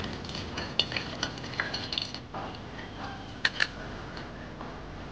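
Metal spatula clinking and scraping against an iron wok during stirring: a scatter of light clinks, with two sharper clanks in quick succession about three and a half seconds in.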